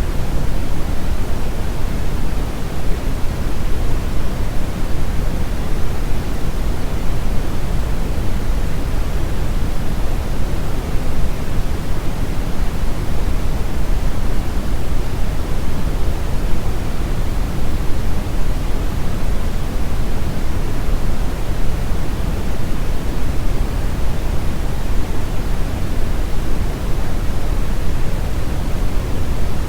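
Steady generated noise sound effect: an even, unchanging hiss with most of its weight in the low end, of the pink-noise kind.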